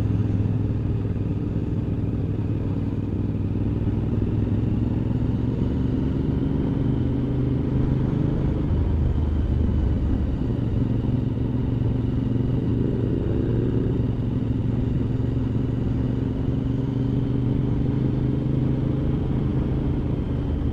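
Motorcycle engine running steadily while riding, with wind and road noise; the engine note drifts gently up and down with the throttle.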